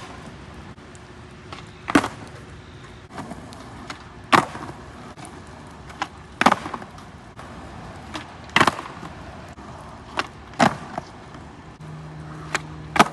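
Skateboard rolling on wet concrete, with a sharp clack of the board or wheels striking about every two seconds.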